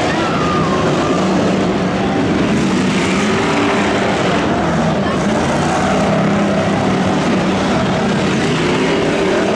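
Figure-eight race car engines running loudly and steadily, over a constant roar of noise.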